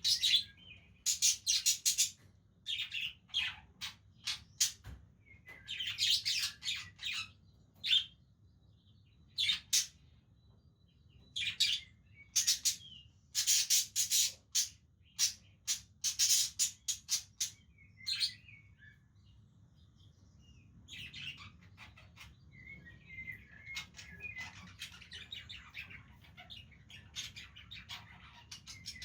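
Budgerigars chirping in clusters of short, sharp high calls, giving way after about twenty seconds to a softer, steadier chatter.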